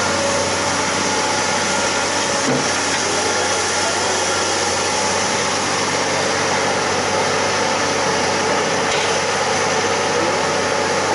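Excavator's diesel engine running steadily, with a faint knock about two and a half seconds in.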